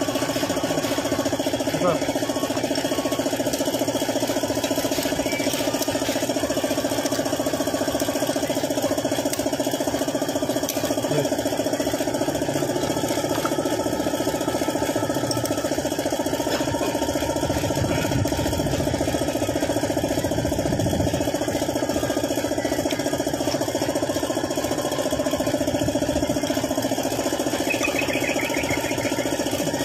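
Suzuki F6A three-cylinder engine running steadily at a constant speed.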